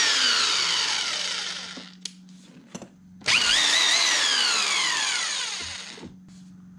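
Corded electric impact wrench with a brushed motor, run free with no load. The motor whine slides down and coasts to a stop as the trigger is let go, then a second trigger pull about three seconds in spins it up again before it winds down.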